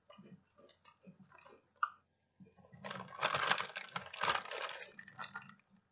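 A mouthful of Lay's Crispy Taco potato chip crunching as it is chewed, in small irregular crunches. About three seconds in, the foil-lined chip bag crinkles loudly for a couple of seconds as it is handled.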